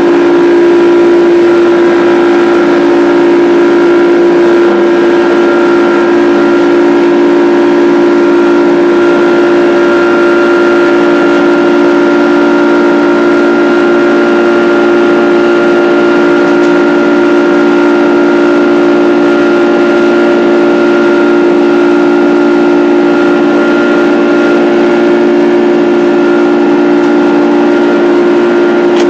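Boeing 767's Rolls-Royce RB211 jet engines running steadily, heard from inside the passenger cabin as a loud even drone with a strong low hum and fainter higher tones.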